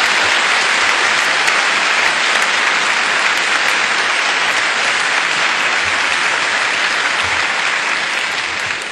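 A large auditorium audience applauding steadily, the applause tapering off near the end.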